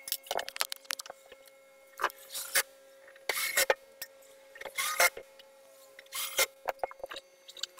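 Short, irregular scraping and rubbing noises as the metal case of a hot air rework station is handled with hands and a tool, over a faint steady hum.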